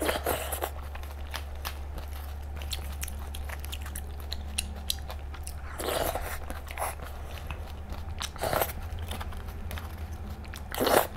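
Close-miked chewing of slipper lobster meat dressed with scallion oil: many small wet, crackly mouth clicks, with a few louder clusters.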